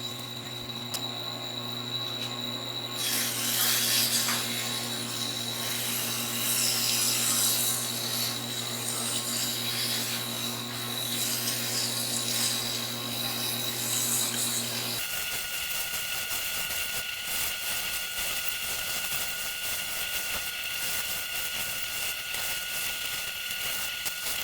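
A homemade 2x72 belt sander driven by an electric bike motor runs with a steady hum. About three seconds in, loud rough grinding starts as a workpiece is pressed against the moving abrasive belt, and it goes on for about twelve seconds. The sound then changes abruptly to a steady high whine with no low hum.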